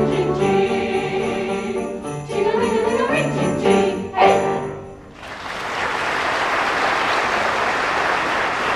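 Ensemble music with sleigh bells jingling, closing on a final chord about four seconds in. After a brief dip, audience applause fills the rest.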